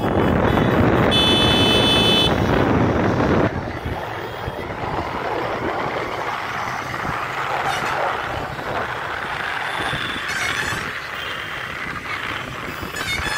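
Vehicle traffic noise with a horn honking about a second in; the loud noise drops off suddenly after about three and a half seconds, leaving quieter traffic with a few short tones.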